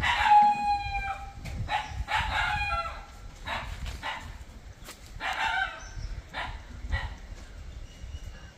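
A rooster crowing: a long call with a held note at the start, followed by several shorter calls and barks from a dog.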